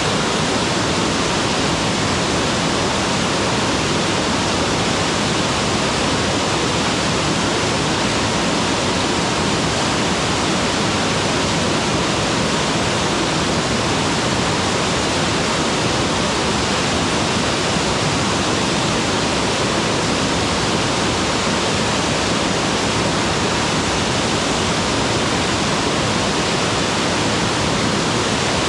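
Waterfall pouring steadily: a loud, even rush of falling water with no breaks or changes.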